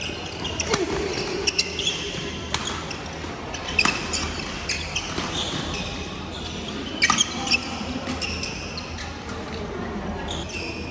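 Badminton rally: irregular sharp smacks of rackets hitting the shuttlecock, with a quick run of hits about seven seconds in, and short squeaks of shoes on the wooden court, echoing in a large hall.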